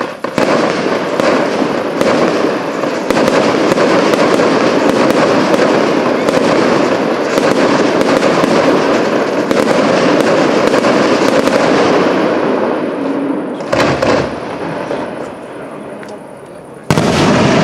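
Fireworks going off in a dense, continuous barrage packed with sharp bangs and crackles. It eases off about fourteen seconds in, then a loud new salvo starts just before the end.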